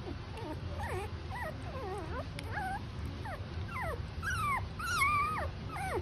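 A very young puppy whimpering and squealing while being syringe-fed milk: a rapid string of short, high, wavering squeaks that grow louder and longer near the end.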